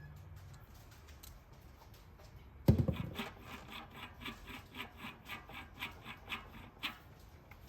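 A single sharp knock, then a run of evenly spaced clicks, about three a second, that stops near the end.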